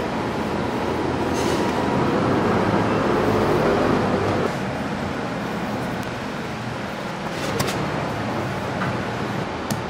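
Steady mechanical rumble with a low hum, swelling for a couple of seconds and then easing off about four and a half seconds in. A couple of light knocks come near the end.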